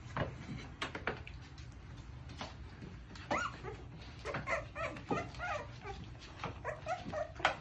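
Young puppies whimpering and squeaking in a string of short, high cries from about three seconds in, with scattered soft knocks and rustles as the dogs move about in the plastic pool.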